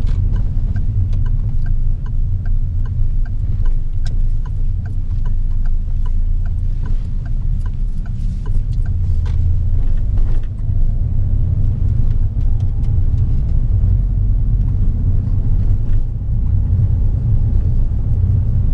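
Car cabin rumble from the engine and tyres on the road, with the turn indicator ticking about twice a second for the first nine seconds or so; the ticking then stops, as the indicator cancels after the left turn.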